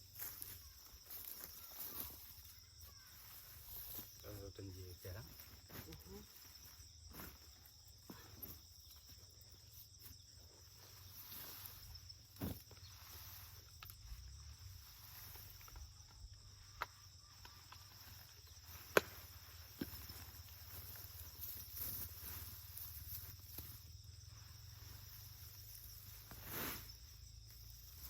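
Insects chirring steadily in the background, with footsteps and rustling in vegetation and a few sharp clicks. A faint voice is heard about four to five seconds in.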